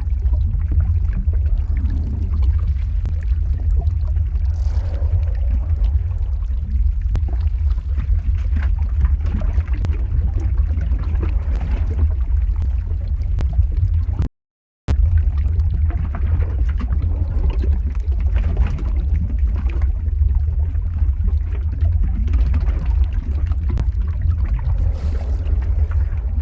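Lava flow ambience: a heavy, steady low rumble with scattered crackles and bubbling. The sound cuts out completely for about half a second midway, then resumes unchanged.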